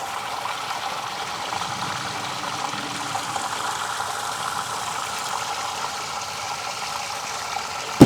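Water draining steadily out of a pressure-washing buffer tank, a continuous running-water sound as the tank level is lowered. A single sharp knock right at the end.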